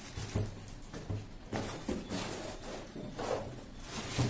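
Plastic wrapping crinkling, with irregular light knocks, as the bagged induction cooktop is handled on a wooden desk.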